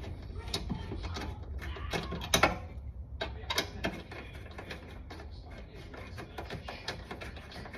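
Ratchet wrench clicking in short runs as a bolt on a front splitter's mounting bracket is turned, with a few louder metal knocks in the first half.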